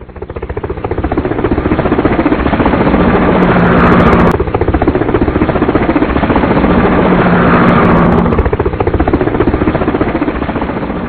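Helicopter rotor blades chopping in a fast, even beat. The sound builds to a peak about four seconds in and drops off suddenly, then swells again to a second peak near eight seconds and fades away.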